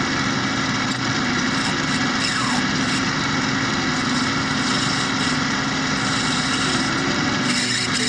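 Small metal lathe running steadily, its three-jaw chuck spinning a brass bar, with an even motor and gear hum.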